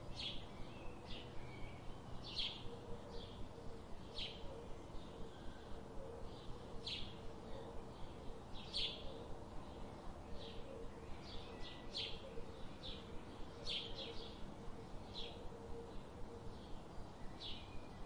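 Small songbirds chirping: short, high chirps coming irregularly about every second, over a faint steady hum.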